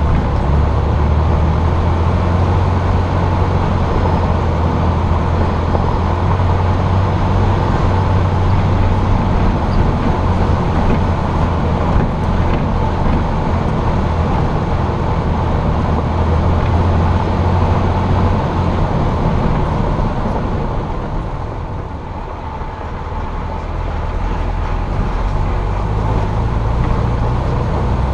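Jeep engine running under a steady low drone, with tyre and road rumble, picked up from a camera mounted on the hood. The sound eases off for a few seconds about three quarters through, then builds again.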